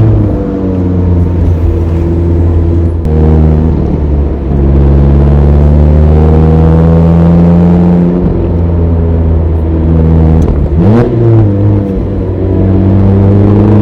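Mazda ND Roadster (MX-5) inline-four engine pulling uphill under load, its pitch stepping up and down through manual gear changes, with a quick sharp rev rise about eleven seconds in.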